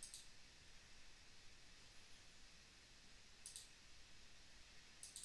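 Computer mouse button clicks: a click right at the start, a double-click about three and a half seconds in and another near the end, over faint hiss.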